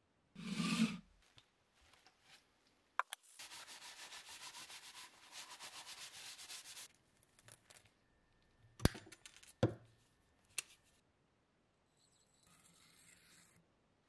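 A short thud near the start, then a quick, even scraping for about three and a half seconds. A few seconds later come two sharp snaps of side cutters cutting copper wire.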